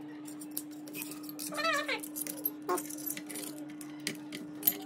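Light clicks and clinks of small plastic and metal parts being handled as a 3D-printed probe housing is fitted and screwed to a 3D printer's printhead cover, over a steady low hum. A brief wavering tone sounds about a second and a half in.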